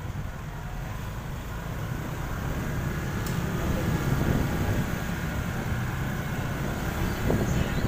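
Motorcycle ride: the engine running with heavy wind and road rumble on the microphone, getting louder a few seconds in.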